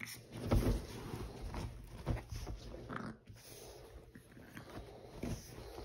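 Pug puppy chewing and gnawing on a hand-held chew toy: irregular clicks and mouthy crunching, loudest about half a second in.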